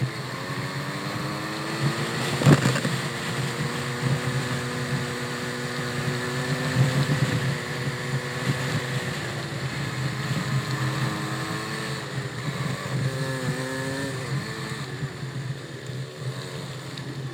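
A vehicle engine running steadily, its pitch dipping and rising a few times, with a sharp knock about two and a half seconds in.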